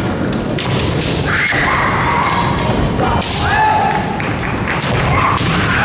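Female kendo players shouting kiai, several long high-pitched yells each held for about a second, overlapping one another. Thuds of stamping feet and sharp knocks, typical of shinai strikes, cut through the yells.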